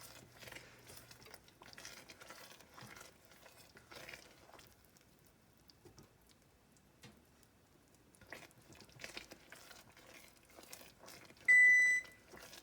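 Faint scattered crackling from butter and brown sugar beginning to simmer in a saucepan, then near the end a single loud electronic oven beep of about half a second, signalling that the oven has finished preheating.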